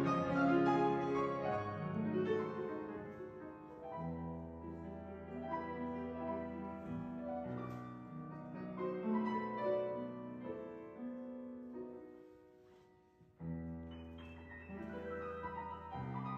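Piano music: slow, sustained chords and notes. About thirteen seconds in the sound dies almost away, then a new chord comes in suddenly.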